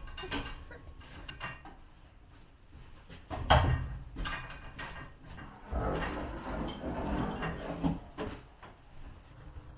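Knocks and clatter of things being handled: a few light knocks, one loud bang about three and a half seconds in, then a couple of seconds of scraping and rustling.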